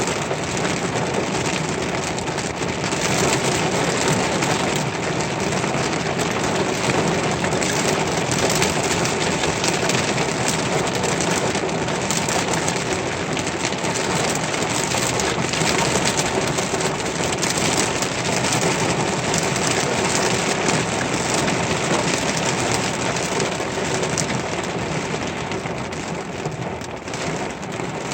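Steady heavy rain falling, a dense even patter of drops.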